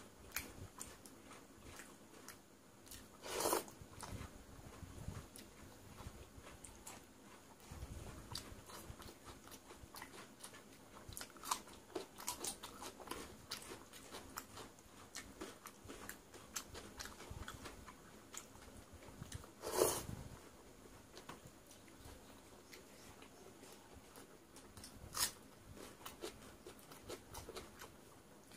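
Close-up chewing and biting of crisp masoor dal fritters eaten with soaked rice: a run of small wet mouth clicks and crunches, with three louder bites standing out.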